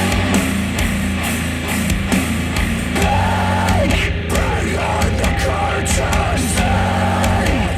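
Heavy rock music with a strong steady bass and held distorted tones, played back through KEF Q350 bookshelf speakers.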